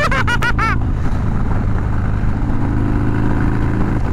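Harley-Davidson Dyna's 106-cubic-inch S&S big-bore air-cooled V-twin running steadily at cruising speed through a Bassani exhaust, with road and wind noise.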